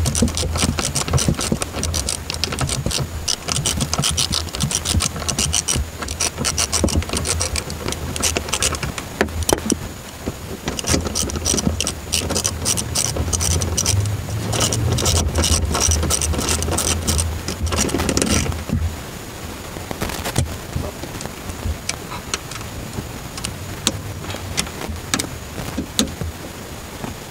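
Hand tools working on car suspension hardware: fast metallic clicking and scraping that thins out to scattered clicks after about 18 seconds.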